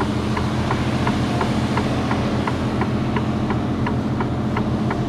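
HGV cab interior: the lorry's diesel engine running steadily with the hazard-warning lights' relay ticking in an even rhythm, about three ticks a second.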